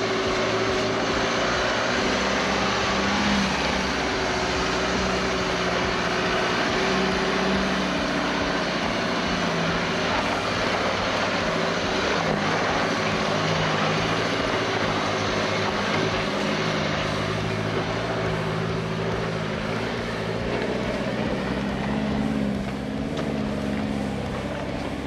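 Four-wheel drive on the move on a dirt bush track: a steady engine drone under constant tyre and road noise.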